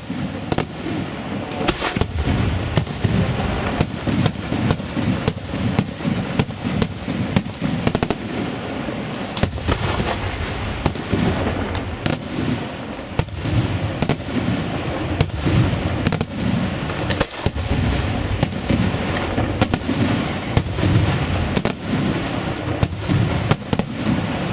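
Aerial firework shells bursting in quick, continuous succession: a dense barrage of sharp bangs over a steady rumble.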